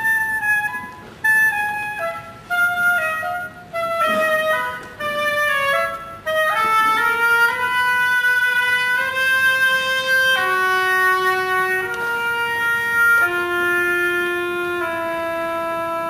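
Solo woodwind, clarinet-like, playing a melody: quick phrases of short notes broken by brief pauses, then from about six seconds in, longer held notes stepping from one pitch to the next.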